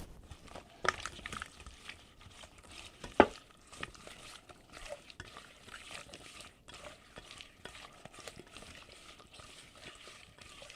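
Seasoned cucumber slices being tossed and mixed in a bowl: a soft, continuous wet stirring rustle with scattered light clicks, the sharpest about three seconds in.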